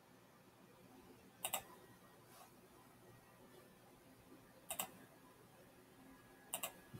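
Three computer mouse clicks, each a quick double snap of press and release, spaced well apart over a faint hiss: edges being picked one by one in CAD software.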